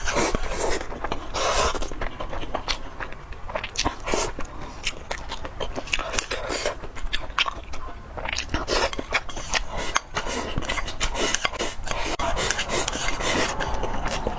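Close-miked eating sounds: food being bitten and chewed, with many quick small clicks and scrapes, as of utensils against a dish.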